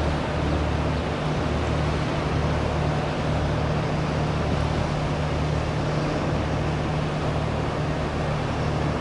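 Ship diesel engines running steadily with a low hum, under a constant rush of churned water.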